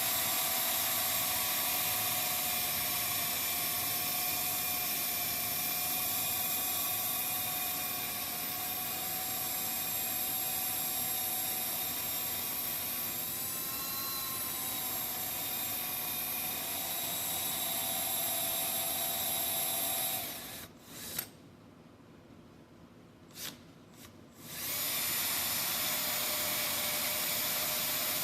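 Electric drill running steadily under load, boring into a broken bolt in an engine block; it stops for a few seconds about three-quarters of the way through, then starts up again.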